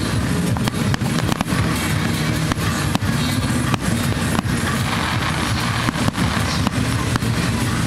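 Fireworks going off: many sharp cracks and pops in quick, irregular succession, over background music.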